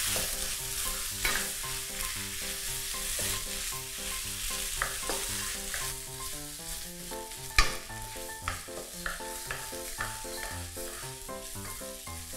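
Fried rice with chili-tomato paste sizzling in a non-stick wok while a wooden spatula stirs and scrapes through it, with scattered clicks of the spatula against the pan and a sharper knock about seven and a half seconds in. Soft background music plays underneath.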